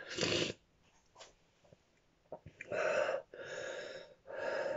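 A man breathing hard and audibly through his mouth while the burn of a superhot chili pepper peaks. There is one breath at the start, a short pause, then three heavy breaths in quick succession near the end.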